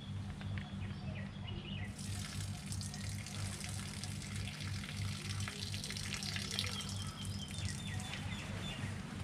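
Water being poured off soaked freeze-dried chicken out of a plastic bag: a steady splashing pour that starts about two seconds in and runs on, over a low steady hum, with a few faint bird chirps near the middle.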